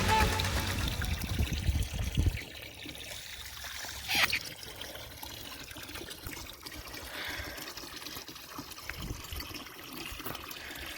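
Water running steadily into a cattle water tank, trickling and pouring. A short sharp sound cuts through about four seconds in.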